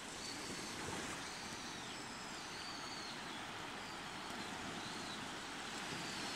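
Small waves lapping on a pebble shore, a soft, steady wash of calm sea.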